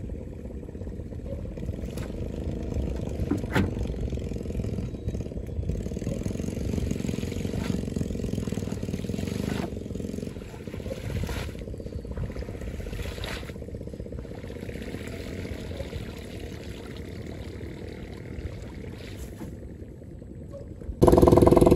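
Low steady rumble with a few faint knocks, then near the end a boat engine comes in suddenly, loud and running steadily.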